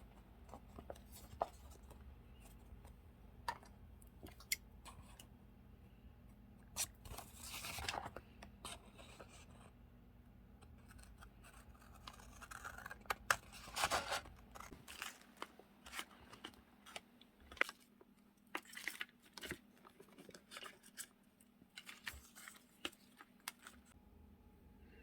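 Paper stickers and stationery being handled and sorted: scattered light taps and clicks, with short paper rustles about eight and fourteen seconds in.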